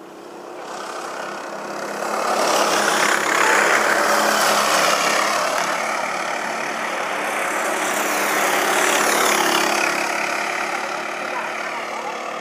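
A pack of racing go-karts with their engines revving as they pass. The engine noise builds over the first two seconds, swells twice, and eases off near the end.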